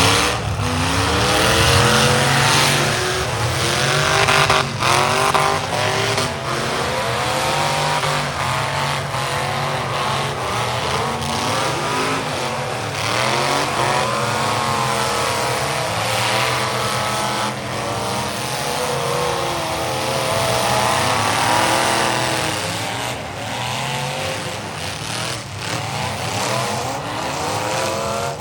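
Several demolition derby cars' engines revving hard, rising and falling in pitch over one another, with tires squealing and a few sharp crashes as cars hit.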